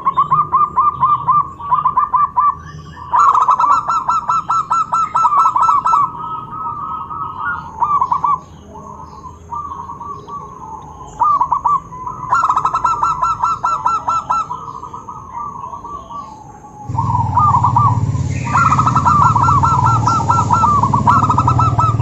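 Several zebra doves (perkutut) singing, their rapid staccato cooing trills coming in repeated overlapping bursts. A low background rumble comes in about three-quarters of the way through.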